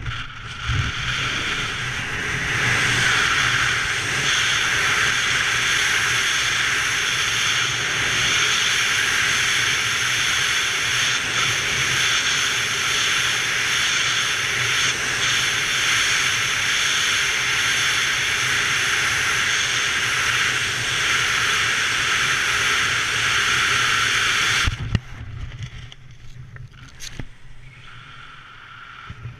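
Wind rushing over a helmet camera's microphone in a BASE jumper's tracking freefall. It builds over the first few seconds after the exit and then holds loud and steady. About 25 seconds in it drops off sharply with a brief snap, leaving softer wind, as the parachute opens.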